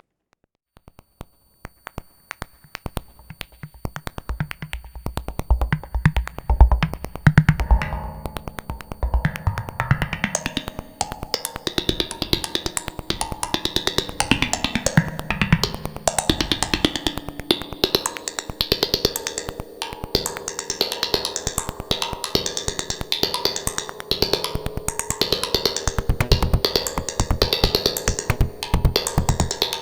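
Make Noise Shared System modular synthesizer playing a drum-and-bass style electro beat, its percussion synthesized from oscillators, noise generators and envelopes rather than drum modules. It starts with fast, even ticks; low kick-like thumps come in a few seconds in, and more layers build up over the first ten seconds or so.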